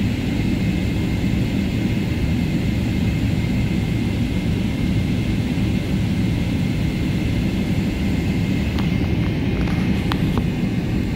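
Boeing 777's GE90 turbofan engines at takeoff thrust heard from inside the economy cabin during the takeoff roll: a loud, steady rumble with a high, even fan whine over it. A few faint clicks near the end.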